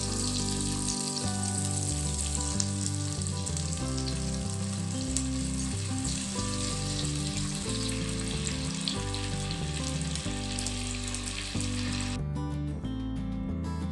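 Butter sizzling and bubbling as it melts into hot caramelized sugar in a stainless steel pan, stirred with a spatula, over background music. The sizzling cuts off abruptly about a second before the end, leaving only the music.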